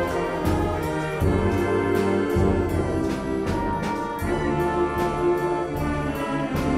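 High school concert band playing: trombones, saxophones and clarinets holding chords over low brass, with a steady beat of percussion strokes about twice a second.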